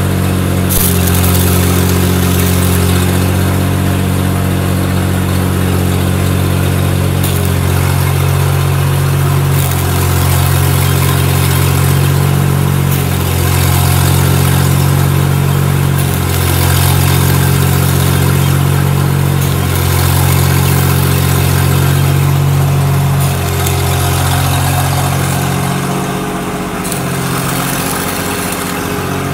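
Stick (shielded metal arc) welding: the electrode arc crackles and sizzles continuously over a steady low hum that shifts in pitch now and then and eases off near the end.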